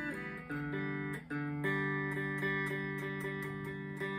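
Slick SL50 Telecaster-style electric guitar played through an amplifier's clean channel: chords picked over and over and left to ring, changing chord a few times in the first couple of seconds.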